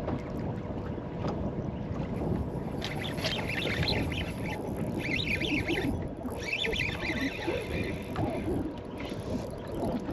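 Wind and small waves slapping around a bass boat on open lake water, with a faint steady hum underneath. From about three seconds in, bursts of high scratchy chirping come and go until shortly before the end.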